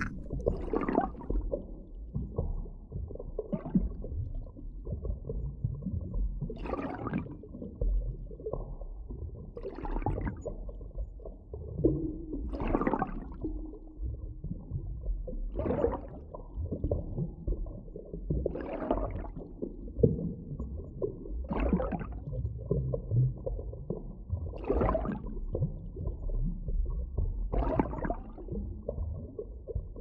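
Underwater ambience: a steady low rumble with a soft whooshing surge about every three seconds.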